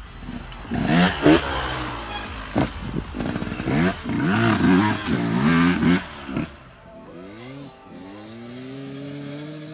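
2017 KTM 125 SX's single-cylinder two-stroke engine revving hard, its pitch climbing and dropping again and again as the bike accelerates. After about six and a half seconds it is quieter, with long rising sweeps in pitch.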